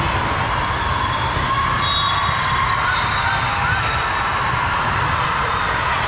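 Steady din of a large sports hall during volleyball play: balls being struck and bouncing on the courts, mixed with a background of voices.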